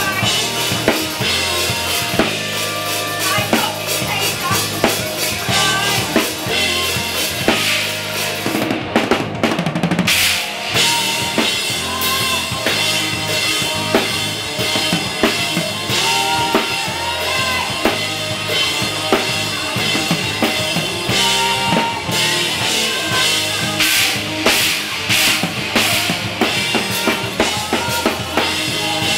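Live rock band playing, with the drum kit loud and up front: kick drum, snare and cymbals keeping a steady beat over the pitched instruments.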